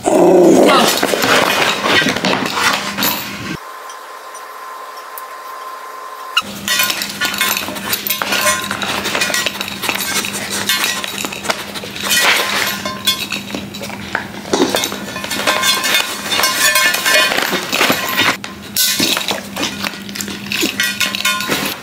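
A dog's plastic cone collar knocking, clinking and scraping against a hard table top again and again, in quick irregular clatters while the dog noses at treats on the table.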